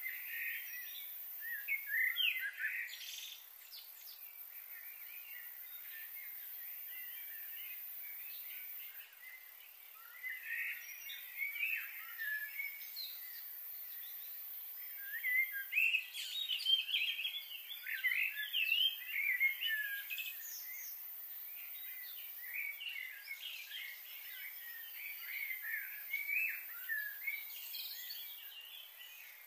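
Songbirds chirping and calling, many short overlapping notes, busiest for a few seconds near the start and again from about halfway through.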